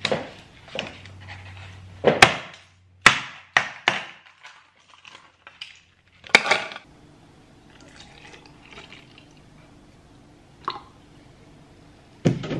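Ice cubes cracked out of a plastic ice cube tray and dropped into a clear plastic tumbler, a handful of sharp clicks and clatters over the first several seconds. Then milk is poured into the cup with a soft, steady splash.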